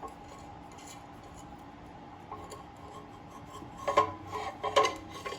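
Small metal parts being handled, rubbing and clinking as a screw is fitted into a hole in the workpiece, with a few sharp clinks about four to five seconds in.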